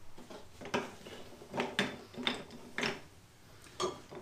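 Steel transmission parts, gear shafts and shift forks, being handled on a table: about five short metal clinks and knocks as they are picked up and set down.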